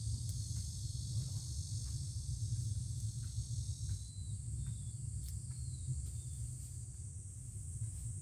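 A high, steady chorus of insects, part of which stops about four seconds in, over a steady low rumble. Faint scattered clicks and rustles of green onion stalks being trimmed by hand.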